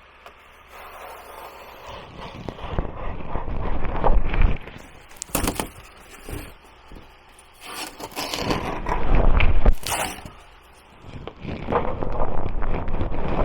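Scraping and rustling as insulation is worked and wedged into a bus wall, in irregular swells with a few sharp knocks.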